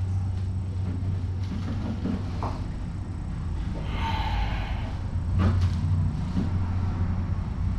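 Steady low hum of room noise, with a short soft rustle about halfway through and a few light knocks.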